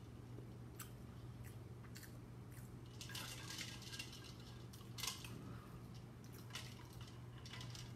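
Faint clinks and taps of dishes and a cup, with liquid poured into the cup for a second or so about three seconds in.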